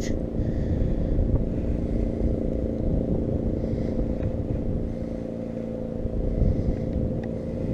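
A steady engine-like hum with several fixed tones over a low rumble, holding at an even level.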